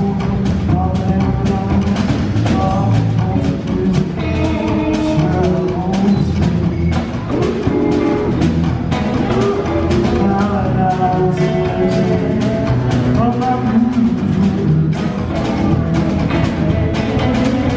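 Live band playing, with guitar and drum kit keeping a steady beat under a melody line.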